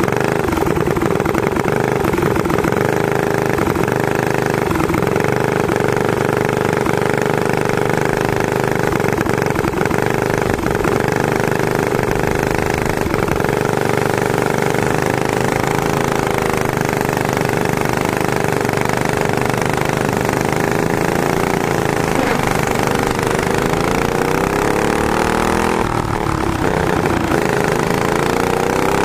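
Racing go-kart's single-cylinder four-stroke clone engine running hard under the onboard camera, with the other karts' engines close around it. Near the end the engine pitch dips, then climbs steadily as the kart accelerates.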